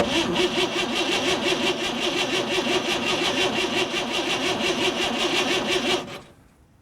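1955 Chevy truck engine being cranked by its rebuilt starter with a new Bendix drive: a steady, rapid, even rhythm of the engine turning over for about six seconds without catching, then it stops abruptly. The starter engages and spins well, but the engine doesn't fire.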